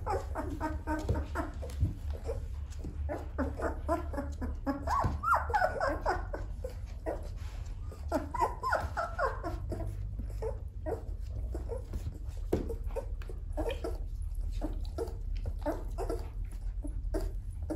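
Two-week-old Shepsky puppies whimpering and squeaking in short, high calls, with several longer cries that rise and fall in pitch during the first half, then shorter, clipped squeaks.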